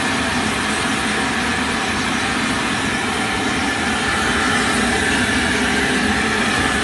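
A 30 kg commercial drum coffee roaster in its cooling stage makes a steady machine noise: the cooling fan runs while the stirring arms in the cooling tray churn the freshly roasted beans.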